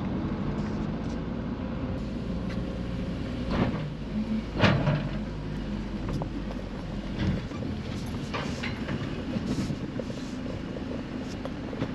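A vehicle driving onto a small car ferry: a steady low engine hum with several clunks and knocks. The deepest part of the hum drops away about seven seconds in.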